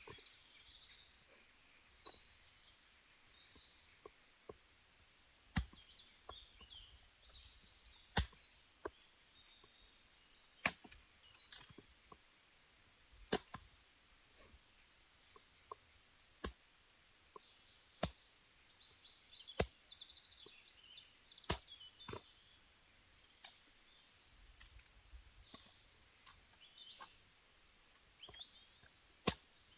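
Sharp knocks on wood, about a dozen, one every couple of seconds, with small birds chirping high in the background.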